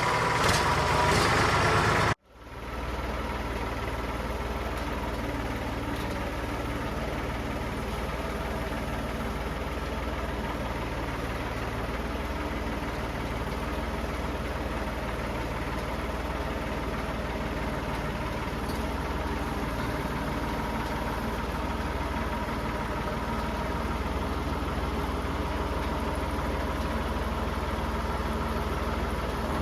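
Massey Ferguson tractor engine running steadily at idle with a low hum. About two seconds in the sound cuts out for an instant, then carries on a little quieter.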